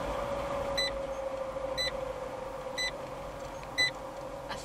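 Car cabin noise of driving with a steady hum, and a short electronic beep in the car repeating about once a second.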